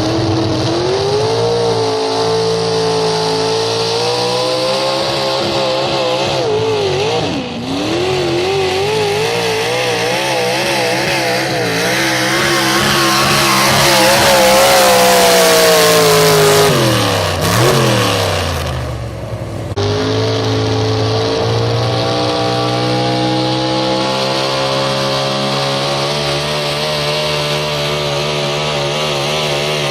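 Super stock 4x4 pulling truck engine at high revs under load, its pitch wavering up and down as it hooks and bounces, loudest near the middle. About two-thirds of the way in the revs fall away sharply, then an engine carries on at a steady high pitch.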